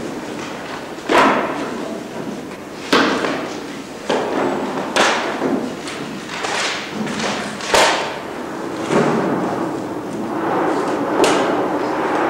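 About five heavy thuds, one every two to three seconds, each followed by a long echo of a large hall.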